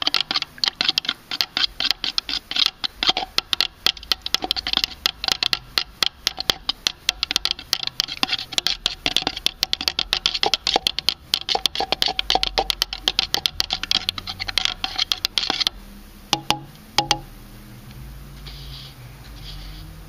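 Stop-leak sealant and liquid drier additive being stirred fast in a foam cup: a quick, continuous run of scraping clicks against the cup wall that stops about three-quarters of the way through, followed by a couple of light taps.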